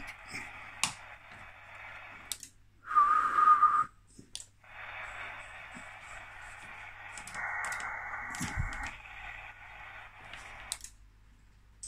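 Shortwave receiver hiss from a transceiver's speaker, band noise in a narrow voice passband. It cuts out and comes back with sharp clicks as the rig is keyed. About three seconds in comes a short, slightly wavering whistle.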